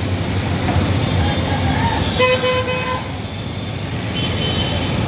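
A vehicle horn honks once, briefly, a little over two seconds in, over a steady rumble of road traffic and engines.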